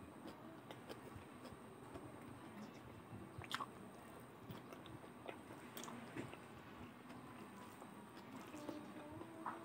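A person chewing a handful of rice and fried potato with greens, eaten by hand: soft wet chewing with lip smacks and scattered clicks, a few sharper smacks about three and a half and six seconds in and near the end.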